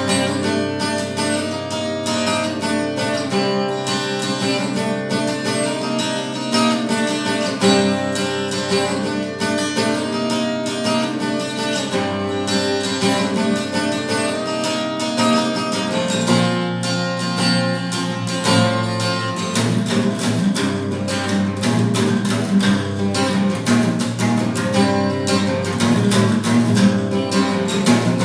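Acoustic guitar playing continuously, a steady stream of plucked notes and chords, with fuller low notes from about halfway through.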